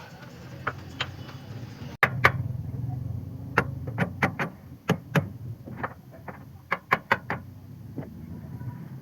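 A run of sharp, irregular knocks and clinks from hand tools striking metal during work on a school bus's broken leaf spring, over a low steady hum.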